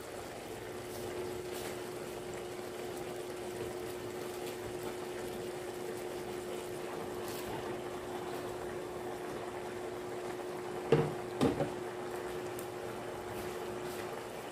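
Milkfish in coconut milk simmering in a pan on a gas burner: a steady bubbling with a steady low hum beneath it. Two sharp knocks about eleven seconds in, as bok choy is laid into the pan.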